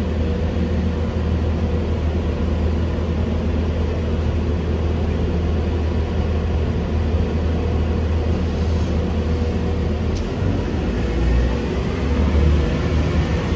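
Steady low rumble of a city street at night: traffic and running vehicle engines, with a faint steady hum.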